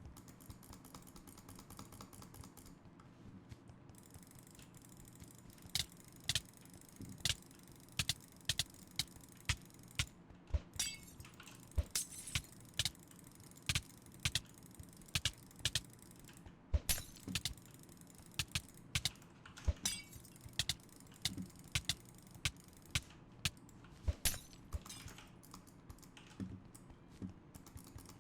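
A new computer mouse's buttons clicking: sharp, short clicks at an irregular pace, roughly one or two a second, some in quick pairs.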